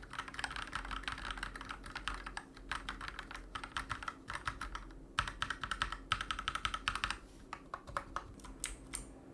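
Fast typing on a Redragon Kumara mechanical keyboard fitted with Akko Matcha Green switches and a foam mod: a dense run of key clacks with a few short pauses, thinning to scattered keystrokes near the end.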